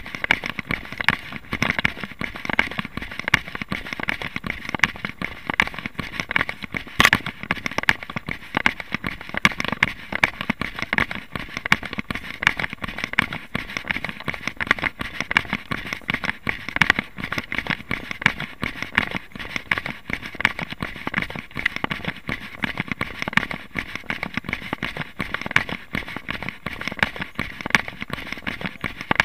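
Continuous crackling and clicking from a camera jostled with every stride of a runner on a grass and dirt trail, mixed with footfalls. One sharper knock comes about seven seconds in.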